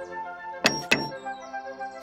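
Two knocks on a door, about a quarter second apart, over steady background music.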